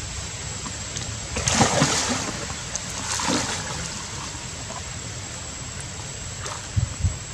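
Young macaques splashing about in a shallow pool over a steady wash of water, with two bouts of heavier splashing, the louder about a second and a half in and another about three seconds in.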